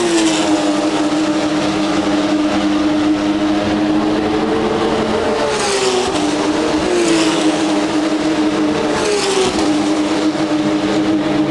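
Porsche race cars' flat-six engines running at high revs on track, a steady engine note from the field. Cars pass close about five and a half, seven and nine seconds in, each with a burst of sound and a drop in pitch as it goes by.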